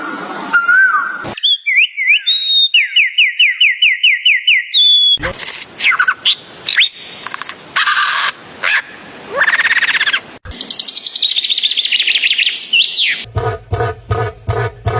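A series of different bird calls cut one after another: repeated high chirping notes, a mix of chirps and calls, then a fast high trill. Near the end it switches to a different animal call pulsing about three times a second.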